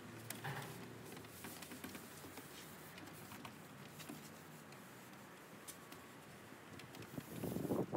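Faint rustling and light ticks of gloved hands moving over a sanded teak table top. Near the end a louder rubbing on the wood sets in.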